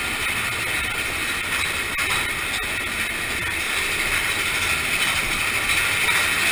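Big Thunder Mountain Railroad mine-train roller coaster running along its track, a steady rumbling rattle of wheels and cars with a few faint clicks.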